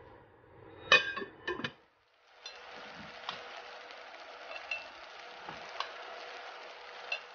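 A few sharp clinks about a second in. Then seafood paella sizzles steadily in the pot, its stock mostly cooked off, with a few light clicks as whole prawns are laid on the rice.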